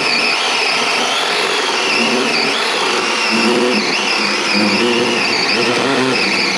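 DeWalt 12-inch cordless electric chainsaw running steadily at full speed, its chain cutting through a log; the pitch wavers as the chain loads up in the wood.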